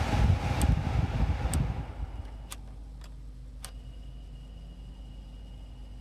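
Heater blower fan of a 2008 Vauxhall Corsa D blowing air through the dash vents, a little noisy. The rush of air dies away about two seconds in, leaving a faint hum. The fan-speed knob clicks four times. The blower motor is the one the mechanic diagnoses as faulty, its speed varying and bogging down on its own.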